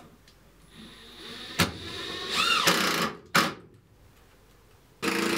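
Cordless drill driving screws in two short runs, about two seconds in and again near the end, with a few sharp knocks between.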